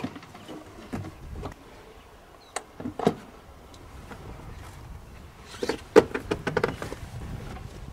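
Tohatsu outboard motor being unclamped from an inflatable dinghy's transom and lifted off: a few scattered clicks and knocks from the clamp and casing, then a quick run of knocks and rattles about six seconds in as it comes free.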